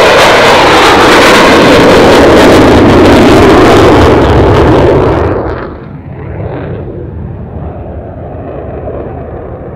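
F-35 Lightning II's F135 turbofan at full power in a close climb-out, a loud jet roar that drops off sharply about five seconds in. What follows is a quieter, duller jet rumble.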